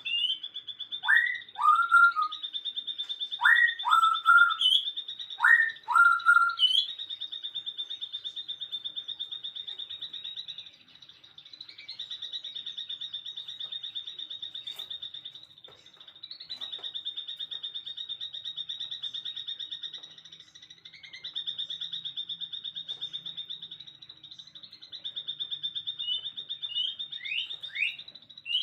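Birds calling over a continuous high, rapidly pulsing trill. Three loud calls in the first few seconds are each a pair of quick downward-sweeping whistles, and a few short rising notes come near the end.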